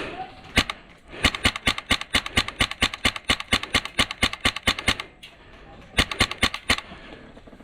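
Airsoft gun firing a long, evenly paced string of shots, about seven or eight a second for several seconds, then a shorter burst near the end.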